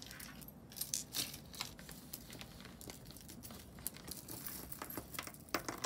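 Jewelry being handled: a plastic bag crinkles and pieces click softly against each other, in scattered short bursts.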